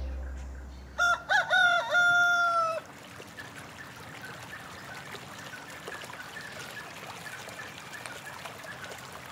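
A rooster crowing once, starting about a second in: a loud call of nearly two seconds that wavers at first and then holds one long note before it stops. After the crow, a faint steady outdoor ambience with small repeated chirps.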